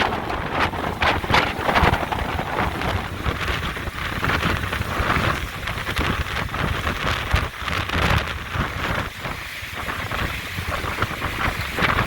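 Fierce hurricane wind (Hurricane Sally) buffeting the microphone: a dense rushing noise with a heavy low rumble, swelling and easing in gusts, easing a little about nine seconds in.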